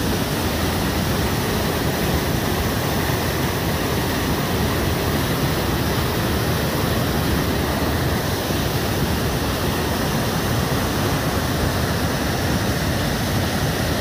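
Small waterfall pouring over rocks into a pool, a steady, even rush of white water heard close up.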